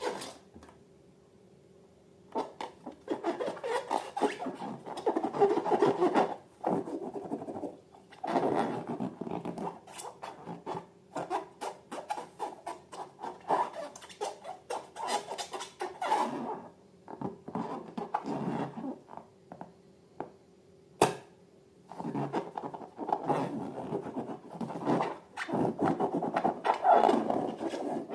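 Slime being squished and worked by hand, in irregular bouts of sticky crackling and clicking with short pauses between. A single sharp click comes about three-quarters of the way through.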